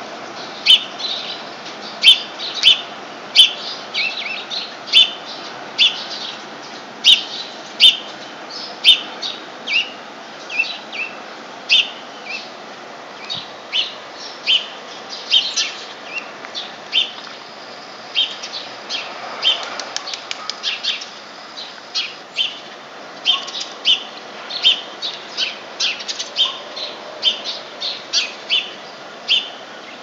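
Small songbirds chirping: short, sharp, high chirps repeated one to two times a second. About two-thirds of the way through comes a quick rapid run of chirps. A steady faint background hiss sits underneath.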